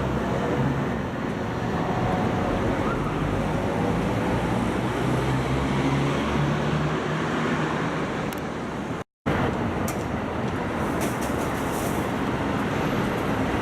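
Steady city road traffic: motor vehicle engines running and tyres on the road at a busy junction, with a moment's break in the sound about nine seconds in.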